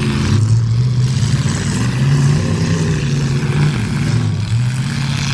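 Demolition derby car engines revving, their pitch rising and falling several times over a continuous noisy din.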